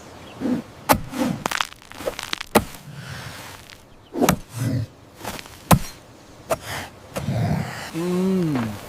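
Cartoon sound effects of digging and working soil: a series of sharp thuds and whooshing swishes at irregular intervals, with a few short pitched vocal sounds, the last one falling in pitch near the end.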